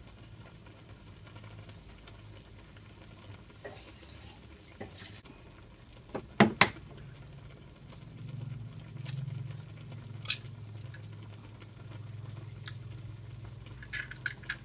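An egg tapped against a hard edge: a sharp double knock about six and a half seconds in, then lighter clicks later. A low steady hum sets in after about eight seconds.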